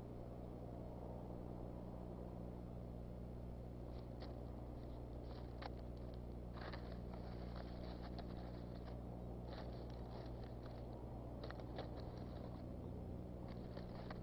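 A bald eagle working nesting material in its nest: dry sticks and grass crackling and rustling in short clusters from about four seconds in, over a steady low hum.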